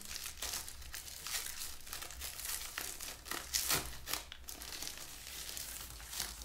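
Packaging crinkling and rustling in irregular crackles as an e-reader is unwrapped and lifted out of its box.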